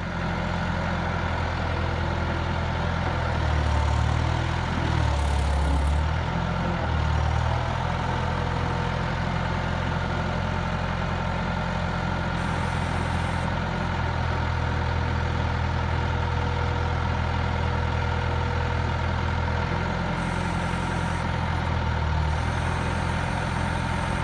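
Bobcat 853 skid steer loader's diesel engine running steadily. Its low rumble swells for a few seconds about four seconds in, and again briefly near the end.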